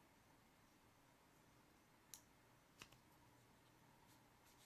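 Two short, sharp clicks less than a second apart from a second-generation iPod Shuffle's small aluminium case being handled while it is wiped with a paper towel; otherwise near silence.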